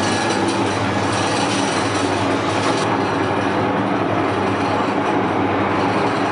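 Semi-automatic strapping machine's motor running steadily with a low hum, its higher hiss easing off about three seconds in.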